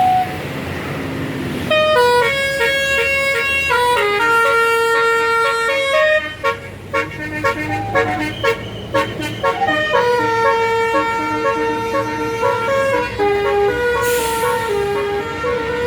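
Tour bus's basuri telolet horn playing a tune: a string of loud held and stepped horn notes starting about two seconds in, with a run of short, quick notes in the middle.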